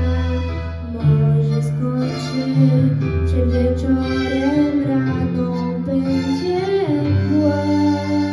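Song music with no words sung: an accompaniment of sustained bass notes and held chords that change every second or two.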